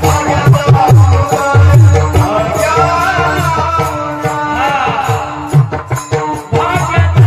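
Devotional bhajan music: a deep hand drum plays a quick rhythm, small hand cymbals strike steadily, and a voice sings a chant over them. The deep drum strokes thin out in the middle and come back near the end.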